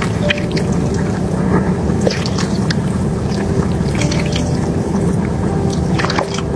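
Wet squelching and dripping of thick stew, with scattered small clicks over a steady low hum.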